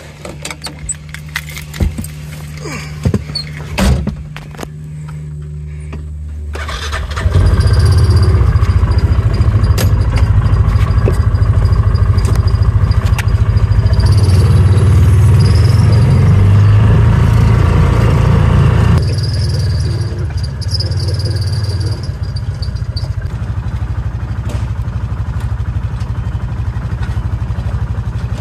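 An engine idling with a few knocks, then running much harder from about seven seconds in, with a high squeal coming and going. It eases back somewhat near the twenty-second mark but keeps running.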